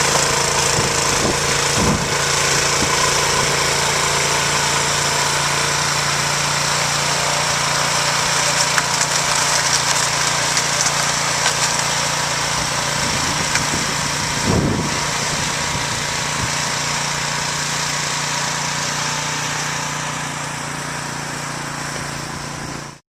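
Small engine running steadily with a constant low hum and a loud hiss, and a couple of brief low thuds.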